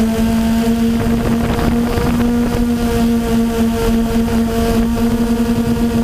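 Quadcopter drone's motors and propellers humming at a steady pitch with several overtones, over rushing wind noise on the microphone.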